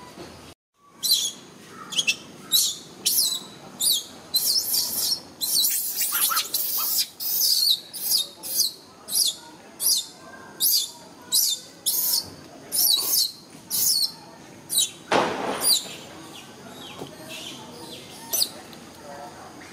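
A bird chirping over and over, short high-pitched calls about twice a second. About fifteen seconds in the chirps stop, with one brief, louder noise that reaches much lower.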